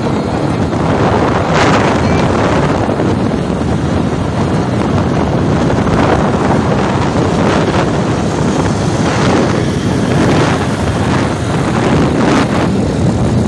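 Steady, loud wind buffeting the microphone of a passenger on a moving motorcycle, with motorcycle road noise mixed in.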